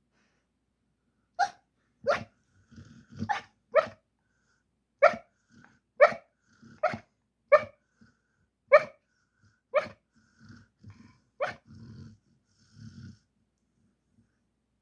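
Dog barking in its sleep while dreaming: about eleven short barks, roughly a second apart, with low grunts and breaths between them.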